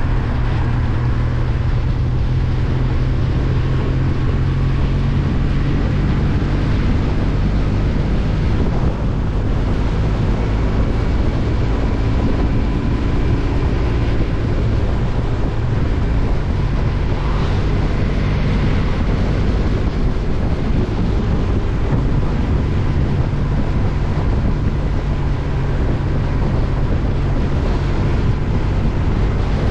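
Wind rushing over a GoPro's microphones while riding a Kawasaki W800 at road speed, a steady heavy low rumble with the bike's air-cooled parallel-twin engine running faintly underneath.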